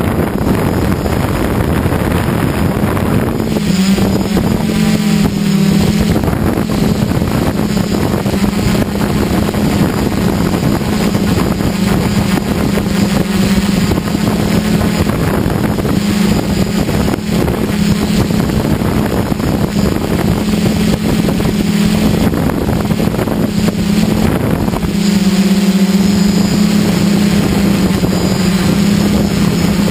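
DJI F550 hexacopter's six brushless motors and propellers humming steadily in flight. The pitch shifts slightly a few seconds in and again near the end, with wind noise on the microphone.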